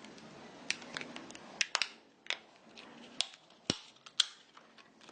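Sharp, irregular plastic clicks and snaps, about a dozen, as the Samsung Galaxy Grand's snap-on plastic back cover is unclipped and pried off the phone. One heavier knock comes a little past halfway.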